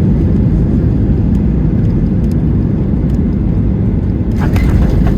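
WestJet jet airliner landing: a steady low rumble, with a brief cluster of clicks about four seconds in.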